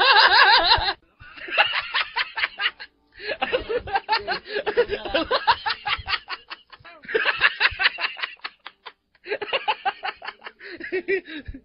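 Laughter in about five bouts of rapid, pulsing laughs with short pauses between them, a dubbed-in laugh track following a joke's punchline.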